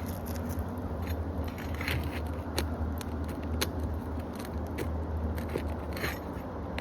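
A roofing nail being worked loose from under a shingle with a hand tool: scattered sharp clicks and short scrapes of metal on the nail and shingle.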